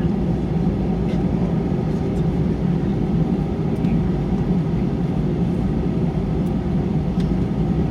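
Steady low rumble of an Airbus A320's engines and airflow, heard from inside the passenger cabin, with a few faint ticks.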